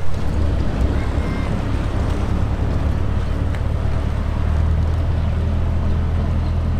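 Passenger motor ship's engine running with a steady low drone as the boat pulls away from the landing stage, with water churning and wind on the microphone.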